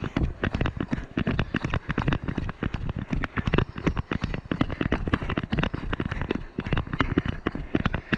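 Rapid, irregular knocking and crackling from a body-mounted action camera jostled by running footfalls.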